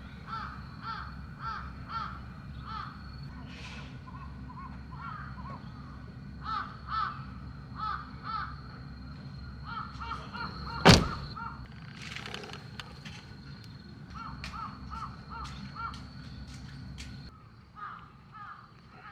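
Crows cawing in quick runs of short, repeated calls over a low steady rumble, with one sharp knock a little past the middle.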